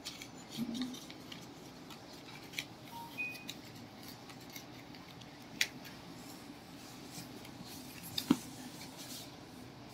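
Ceramic coasters clicking against each other as they are handled and arranged: scattered light clicks, with two sharper knocks, one a little past halfway and one near the end.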